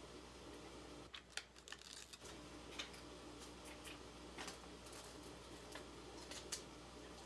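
Cellophane crinkling and crackling in short, scattered bursts as it is folded and pressed flat around a small painted block, with a cluster of crackles between about one and two seconds in.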